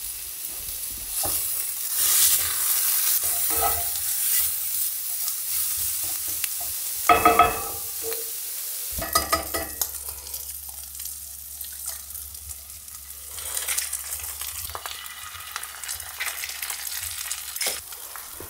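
Ground meat and chopped red bell pepper sizzling as they fry in a cast iron skillet, stirred with a utensil that clicks and scrapes against the pan, with a louder clatter about seven seconds in.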